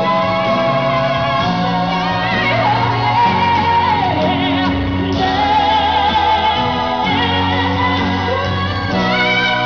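Live pop concert: a female singer sings long, held notes with vibrato into a microphone over a live band, heard through the venue's sound system.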